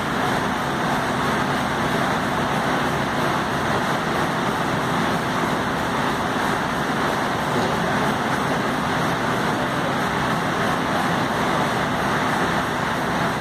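Steady, even background noise, level and unbroken, without clear voices, knocks or a beat.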